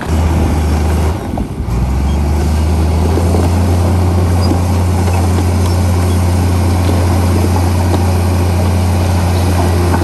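Heavy diesel engine of an earthmoving machine such as a bulldozer or dump truck, running with a steady low drone. It dips briefly about a second and a half in.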